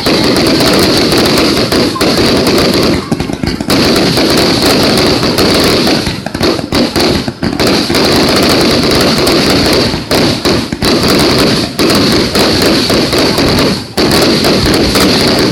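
Fireworks display heard from close range: a dense, loud barrage of shell bursts and crackling, one on top of another, easing off only briefly a few times.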